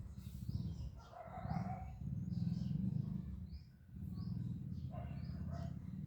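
Small birds chirping repeatedly, short high calls every half second or so, over a steady low rumble.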